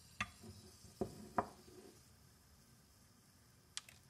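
A ceramic mug being handled and set down on a wooden workbench: a few hard knocks in the first second and a half, then a single light click near the end.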